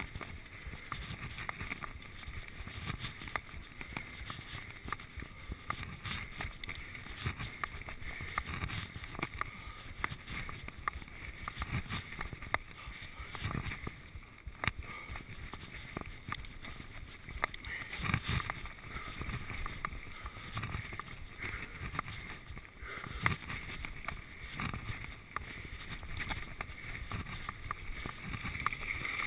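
Giant Trance full-suspension mountain bike rolling fast down a dirt forest trail: a steady rush of tyre and air noise, broken by frequent small rattles and knocks as the bike goes over bumps, roots and stones.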